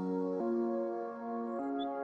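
Soft ambient background music: held synthesizer-like chords that change about every second, with a faint bird chirp near the end.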